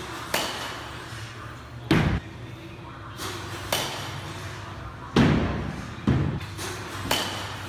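An alloy-barrel youth baseball bat hitting pitched balls, mixed with balls thudding into the batting-cage netting and wall: a series of about six sharp impacts, one every 1 to 2 seconds, each with a short ring.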